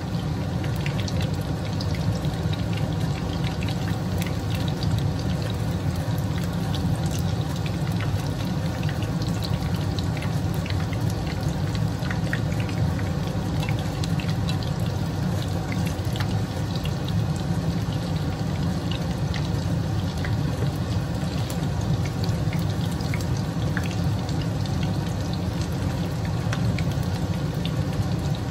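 Pieces of karaage chicken sizzling in hot frying oil during the first fry, a steady sizzle dotted with small crackles and pops, over a steady low hum.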